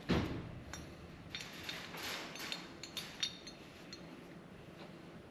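A soft knock, then a scatter of light metallic clicks and clinks as new universal-joint parts (cross and bearing caps) are handled on a workbench.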